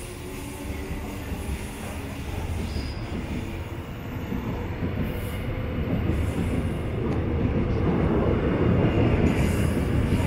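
Subway train running on the tracks at the station: a steady rumble of wheels on rail that grows louder over the second half.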